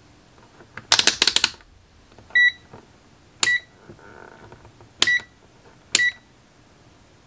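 Rotary selector dial of an ACEGMET JXM8000 digital multimeter clicking through several detents in quick succession, then the meter giving four short high beeps about a second apart as it is switched back on and set to manual range.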